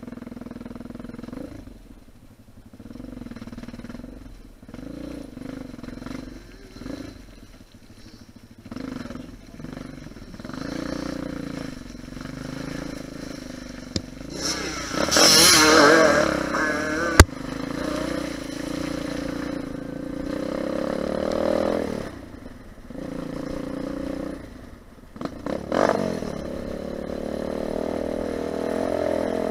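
Lifan 250 four-stroke pit bike engine heard from a camera on the bike, revving up and easing off again and again while riding. A louder rush of noise comes about halfway through.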